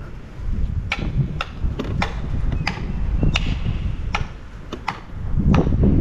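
Wind buffeting the microphone in low rumbling gusts, louder near the end. About ten sharp cracks or knocks come at irregular intervals over it.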